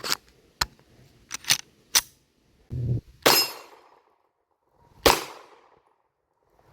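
A few sharp metallic clicks of pistol handling, then two shots from a Glock 19-pattern 9mm pistol, about two seconds apart, each with a short echoing tail.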